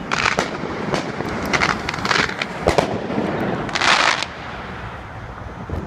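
Fireworks going off: a string of pops and crackling bursts, the longest crackle about four seconds in, then dying down, over a steady low rumble.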